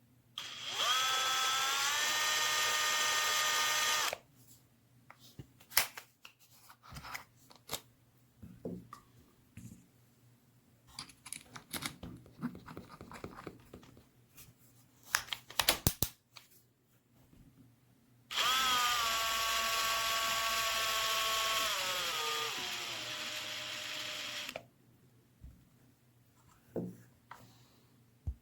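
Bosch Professional GSB 18V-55 cordless drill motor run twice. It spins up to a steady whine for about three and a half seconds, then, after a scatter of clicks and knocks, runs again for about six seconds, its pitch sinking before it stops.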